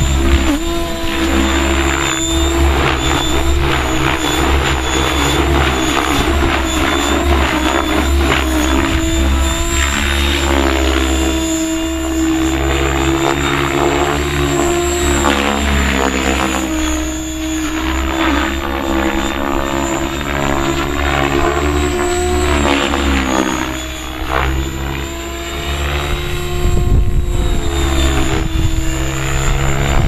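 Compass Atom 6HV electric RC helicopter with a Kontronik brushless motor, flying overhead: a steady high whine under rotor noise that swoops up and down in pitch as it manoeuvres. Wind buffets the microphone with a low rumble.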